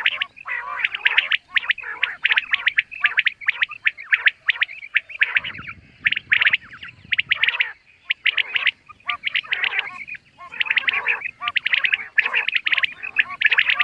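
Common quail calling over and over in short bursts of rapid, high chattering notes, each burst about half a second to a second long with brief gaps between.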